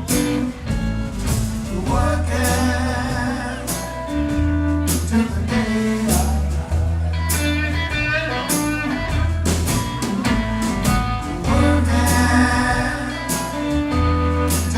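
Blues-rock band music: a singer with guitar over a steady beat.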